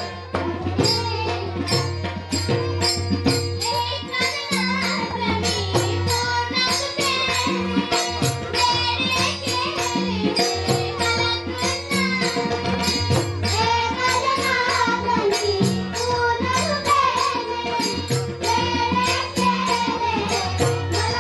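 Music with a quick, steady percussion beat under a melody that slides up and down in pitch.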